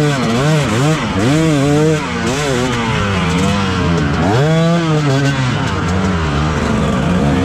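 Dirt-bike engine revved up and down in quick throttle blips, its pitch rising and falling two or three times a second. About four seconds in it gives a longer, higher rev, then runs steadier toward the end.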